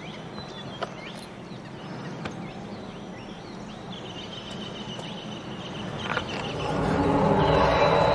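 Outdoor ambience of an abandoned, overgrown place: scattered bird chirps and small clicks over a low hum, then a louder low rumble swells up about seven seconds in.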